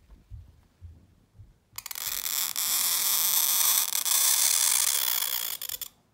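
Calligraphy pen scratching across paper in one long continuous stroke that starts abruptly a couple of seconds in and stops abruptly after about four seconds.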